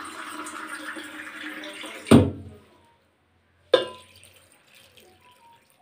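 Water poured from a steel tumbler into a steel pressure cooker holding spinach and dal, a steady splashing pour for about two seconds. Then a sharp knock about two seconds in, and another nearly four seconds in.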